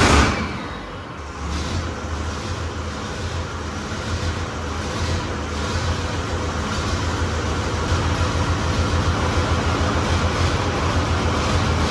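Six-cylinder turbocharged engine of a Fordson Major tractor puller running just after being started. It gives a short loud rise right at the start, then settles into a steady idle with a deep, even pulse.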